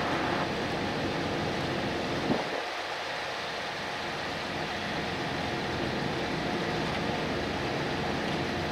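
A steady low mechanical hum under an even hiss of outdoor noise, with one brief knock a little over two seconds in.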